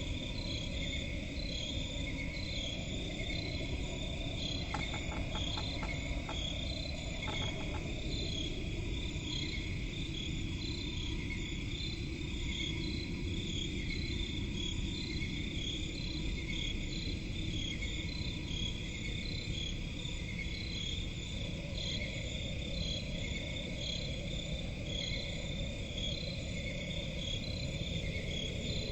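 Swamp crickets chirping in steady, evenly repeating pulses over a low rumbling background. A few faint clicks come between about five and seven seconds in.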